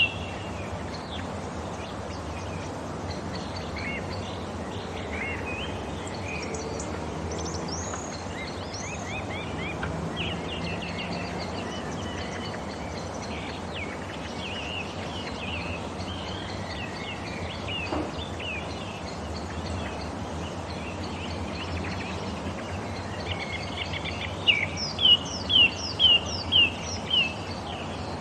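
Wild birds chirping and calling over a steady low background noise, with scattered short chirps and trills. Near the end one bird gives a loud series of about seven repeated notes, roughly two a second.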